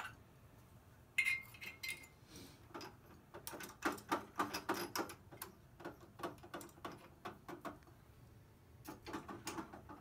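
Irregular small metallic clicks and rattles from hands working a drill press chuck and drill bit, with the drill motor not running. There is a brief ringing metal clink about a second in.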